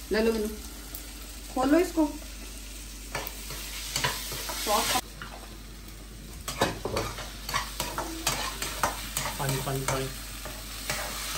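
Food frying in hot oil, sizzling, while a spoon stirs and scrapes in the pan. The sharp clicks of the utensil against the pan come thick and fast in the second half.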